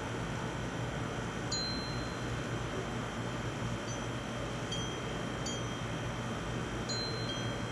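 Wind chimes struck by the breeze: a handful of high, clear notes at irregular intervals, each ringing briefly, over a steady low rumble.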